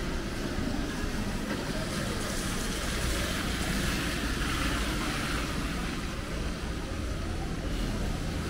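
Steady city street noise: passing traffic with a low engine rumble and a continuous hiss.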